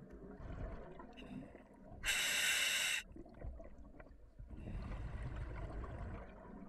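Scuba diver breathing through an Apeks regulator in an OTS Guardian full face mask: a sharp one-second hiss of an inhaled breath about two seconds in, with the low bubbling rumble of exhaled air before it and again later.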